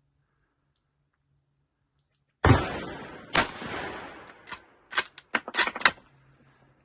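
A single rifle shot from a Savage 110 Scout bolt-action rifle firing 7.62 NATO through a muzzle brake, about two and a half seconds in, with a long fading tail. A second loud crack follows about a second later, then a quick run of sharp metallic clicks.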